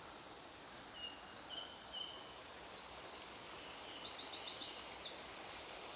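A songbird singing: a few short, thin notes, then a fast trill of repeated notes about halfway through. Underneath is the steady hiss of a flowing stream.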